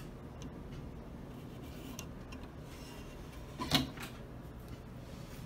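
Faint room noise with one short, sharp knock a little under four seconds in.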